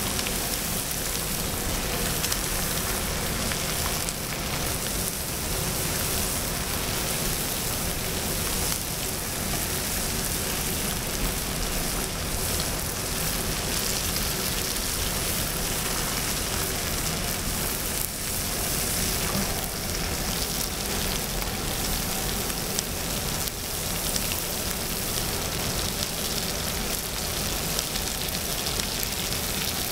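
Pork belly and aged kimchi sizzling steadily on a hot griddle plate, a dense, even crackling hiss of fat and kimchi juices frying.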